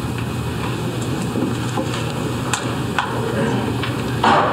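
Steady low room hum with a few sharp clicks about two and a half and three seconds in, then a brief louder noise near the end.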